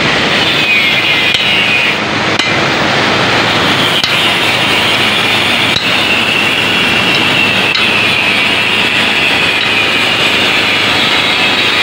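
An angle grinder running on steel, its whine wavering slightly as it bites, over the steady rush of water through the sluice gate. A few sharp metal knocks stand out.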